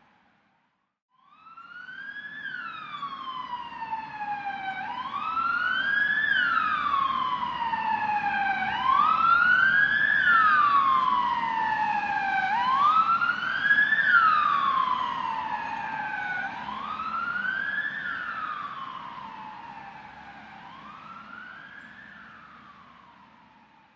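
Ambulance siren wailing, its pitch sweeping up quickly and falling more slowly, about once every four seconds, over a low vehicle rumble. It starts about a second in, grows louder toward the middle and fades away near the end.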